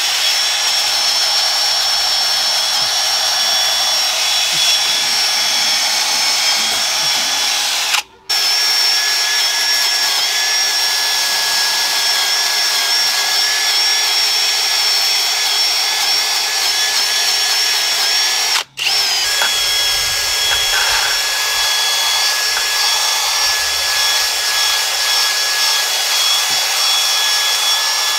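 Cordless drill spinning a wire wheel against a rusty steel truck frame, scrubbing off surface rust and peeling paint: a steady high motor whine over scratchy brushing noise. It is cut off briefly twice, about 8 and 19 seconds in.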